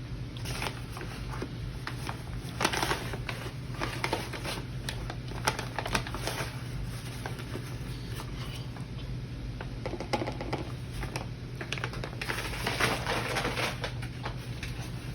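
Flour being measured with a 1/3 measuring cup and emptied into a mixing bowl: scattered light clicks, taps and short scraping and rustling sounds, over a steady low hum.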